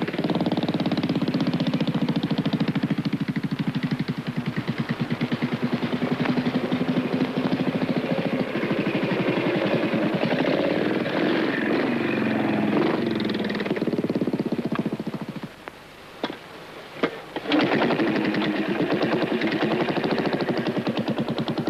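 Single-cylinder trials motorcycle engine running at low revs, a quick steady exhaust beat under delicate throttle. About fifteen seconds in it drops away for a couple of seconds, with two or three sharp clicks, then picks up again.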